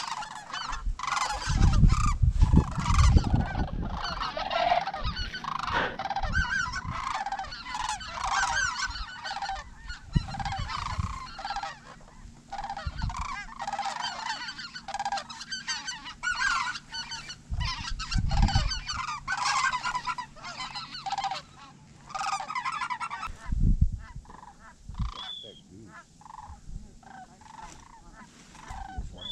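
A flock of geese honking overhead, many short calls overlapping, thinning out to scattered calls over the last few seconds. A few low rumbles come through the microphone now and then.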